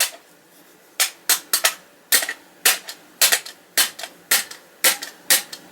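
Sharp, light metallic taps on a tinplate toy car body, about a dozen of them at an uneven pace of roughly two a second, as small parts are tapped into place with a small hammer.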